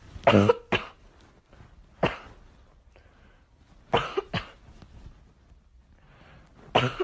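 Boston terrier sneezing: short, sharp sneezes that mostly come in pairs, roughly every two seconds.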